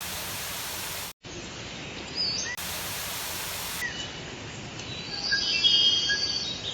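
Steady outdoor hiss with birds calling: short chirps and glides, becoming busier near the end. The background cuts out briefly just after a second in and changes abruptly a few times.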